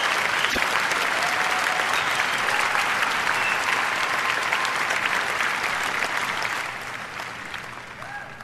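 Large crowd applauding steadily, the clapping dying away over the last two seconds.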